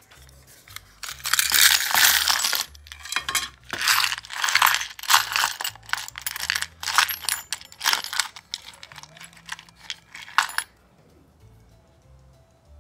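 Small metal parts (rotary-tool bits, mandrels and screws) clinking and rattling as they are dropped into a small wooden tray and stirred around by hand. The clatter starts about a second in, comes in irregular flurries and stops near the end.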